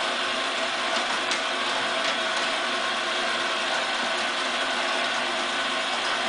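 Toy magnetic fishing game's small motor and plastic gears running steadily, turning the pond of fish with a constant whir and a few faint clicks.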